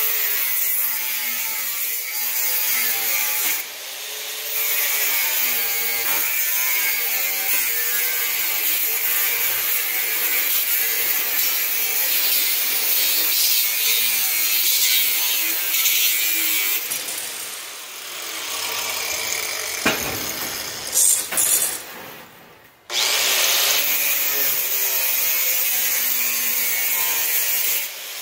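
An angle grinder cuts through rusty expanded steel mesh, its whine dipping and rising as the wheel bites into the strands. It stops about two-thirds of the way through, after a few sharp knocks, and then starts up again.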